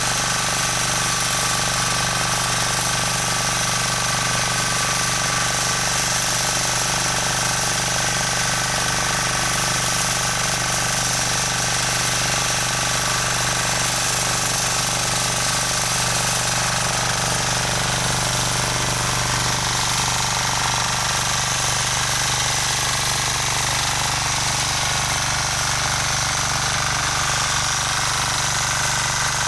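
Engine of a Rotakt walk-behind rototiller running steadily while tilling soil, an unbroken machine drone that holds the same level and pitch throughout.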